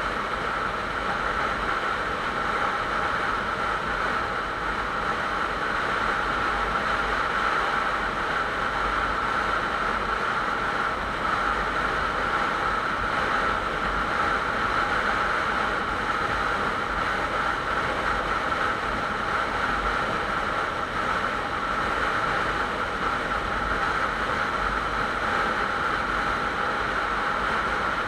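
Motorcycle cruising at steady highway speed: wind rushing over the camera's microphone with the engine and tyre noise underneath, all even and unbroken.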